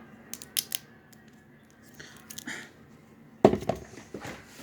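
Action-figure packaging being handled and cut: a few sharp plastic clicks about half a second in, then a louder run of crackling and clicking near the end.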